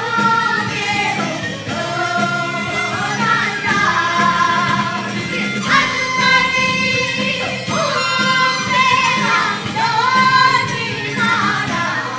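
A group of Korean folk singers, mostly women, singing a traditional Korean folk song together in long held notes that bend and waver in pitch.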